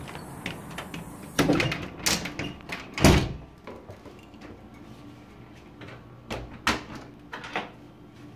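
A house door being opened and pulled shut: clicks and knocks, with the loudest thump about three seconds in as it closes. A few lighter knocks follow near the end.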